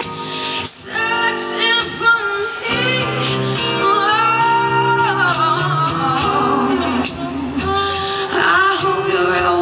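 Live band music: a woman singing lead in a bluesy style, holding long notes that bend in pitch, over guitar accompaniment.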